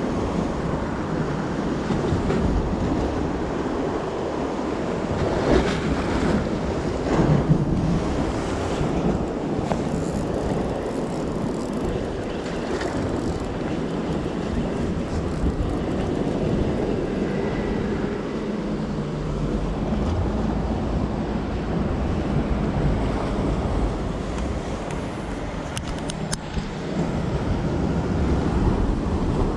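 Wind buffeting the microphone over the wash of sea waves, a steady rough noise throughout.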